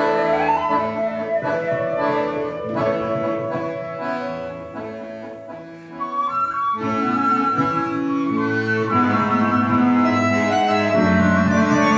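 Live chamber quartet of clarinet, flute, accordion and guitar playing. The music thins and softens through the middle, then comes back fuller about six seconds in, with the flute high above the others.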